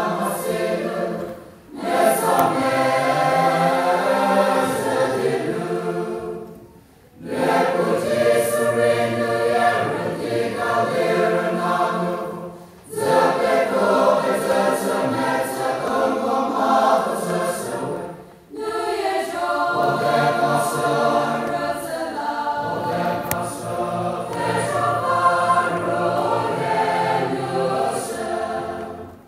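A choir singing in long phrases of five or six seconds, with a short break between each phrase.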